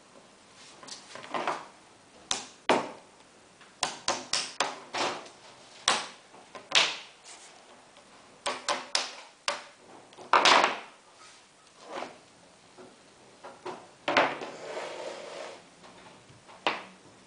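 A small hammer tapping on the aluminium bottom bar of a roller blind: irregular sharp metallic knocks, some in quick runs of three or four, the loudest a cluster about ten seconds in. Between the taps comes the rustle of the blind fabric being handled.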